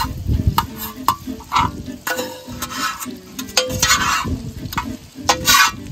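Two metal spatulas scraping and clacking against a cast-iron disc griddle in quick, irregular strokes as chopped beef and onions are worked together, with the meat sizzling on the hot iron.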